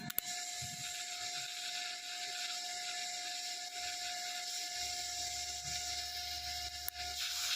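Lift-TIG welding arc from a Predator 5-in-1 inverter welder on 0.9 mm thin sheet: a steady hiss that strikes up abruptly with a click just after the start, over a constant high tone from the machine.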